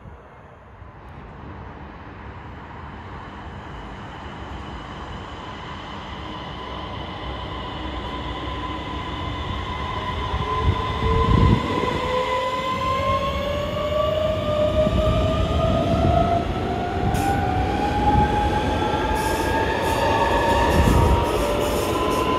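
DSB Øresund electric multiple unit (Øresundståg) accelerating along the platform. Its traction motors whine in several tones that rise steadily in pitch as it gathers speed, over a growing rumble of wheels on rail. Sharp rail clicks come in the last few seconds.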